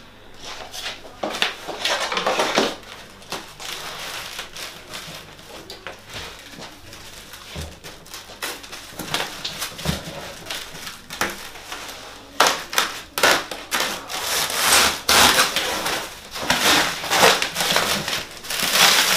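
Cardboard carton and plastic packing sheets being handled and pulled apart, rustling and crinkling in irregular bursts that grow busier and louder in the second half.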